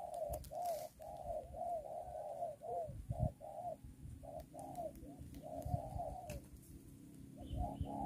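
Spotted dove cooing: a quick, almost unbroken string of short, arched coos that breaks off briefly near the end, with a few low thumps mixed in.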